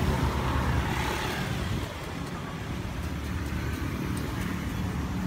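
Street traffic: a motor vehicle's engine running close by, dropping away about two seconds in and building again near the end, over general street noise.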